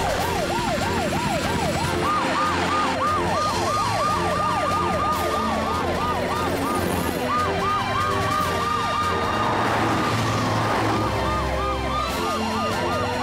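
Rescue vehicles' sirens wailing in fast rises and falls, about three a second, with a second, higher siren joining about two seconds in.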